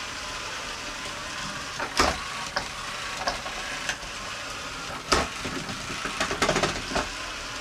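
Roomba robot's motors whirring steadily, with sharp knocks as it bumps into obstacles: one about two seconds in, another about five seconds in, and a quick cluster of smaller knocks near the end.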